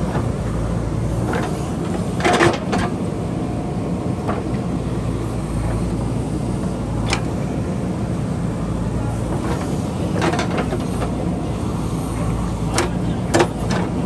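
JCB backhoe loader's diesel engine running steadily while its bucket digs into rocky soil, with sharp knocks of stone and steel, loudest about two seconds in and again near the end.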